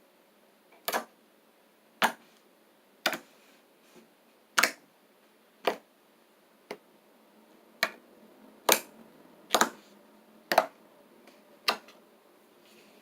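A series of sharp single taps or clicks, about eleven, coming roughly once a second at an uneven pace.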